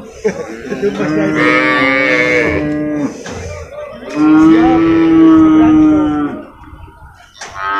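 Cattle mooing: two long, loud moos of about two seconds each, and a third beginning near the end.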